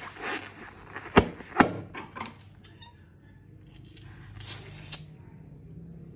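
Rubber balloons squeaking, with sharp clicks and crinkles, as slime-filled balloons are handled. The two loudest clicks come about a second and a half in, and a short rustle follows near the end.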